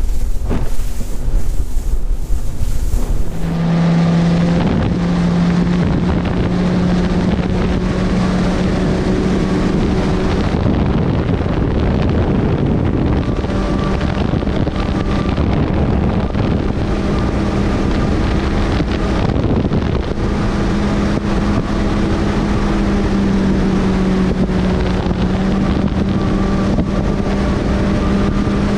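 300 hp Mercury outboard pushing a bass boat at speed: a steady engine drone over the rush of wind and water. Wind buffets the microphone for the first few seconds. From then on the engine tone holds steady, edging up in pitch a little soon after it comes in and dipping briefly near the end.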